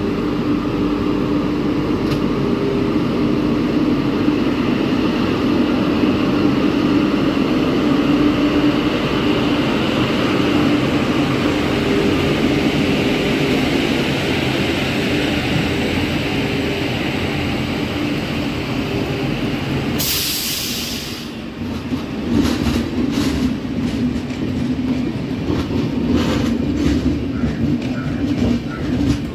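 Indian Railways electric locomotive and its train passing slowly, a steady hum at first. About twenty seconds in there is a brief loud hiss, then the coaches roll by with a repeated clickety-clack of wheels over rail joints.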